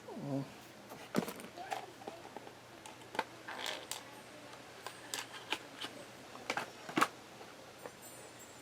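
Scattered small clicks and rattles of a precision screwdriver set and its bits being handled, with one sharper click about seven seconds in.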